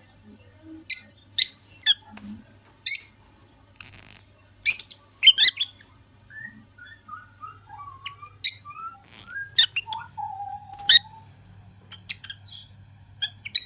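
A pair of lutino lovebirds calling: sharp, loud chirps in short clusters, with a softer warbling chatter of gliding notes through the middle, ending in one held note about ten seconds in.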